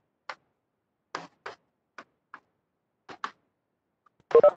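Chalk tapping against a chalkboard as words are written: a string of short, irregular taps, with a louder cluster near the end.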